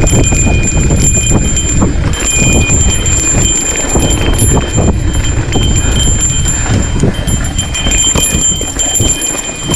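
Mountain bike riding fast down a rough dirt and rock trail: a loud low rumble of tyres and wind, broken by many irregular knocks and rattles as the bike jolts over bumps.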